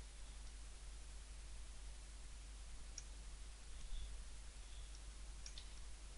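A few faint computer mouse clicks: one about halfway through and two in quick succession near the end, over a steady low hum.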